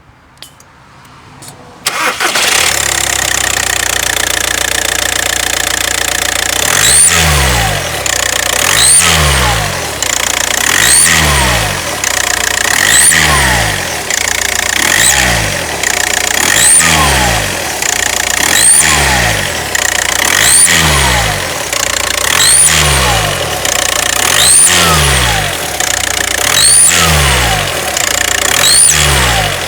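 VW Passat B6 TDI diesel engine starting about two seconds in and idling, then blipped about every two seconds, each rev bringing a rising high whistle like a turbo whistle. The uploader traces the whistle to the EGR valve not sealing fully.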